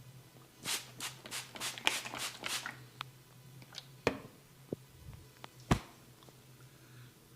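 Barber's hands working a head massage on a person's scalp and hair: a quick run of about seven brisk strokes, roughly three a second, then a few scattered sharp clicks and taps.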